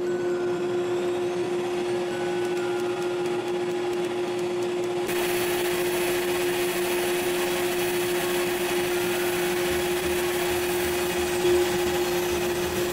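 CNC router spindle running at 16,500 RPM with a 60-degree V-bit, V-carving a wooden board. It makes a steady whine over a rushing hiss, and the hiss turns brighter about five seconds in.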